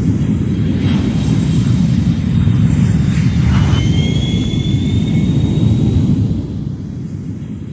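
Aircraft flying overhead: a steady, loud low rumble that eases off about six seconds in, with a thin rising whine in the middle.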